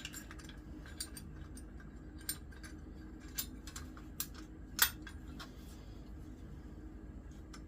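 Light metallic clicks and taps of metal parts and tools being handled, scattered irregularly, with one sharper tap nearly five seconds in, over a steady low hum.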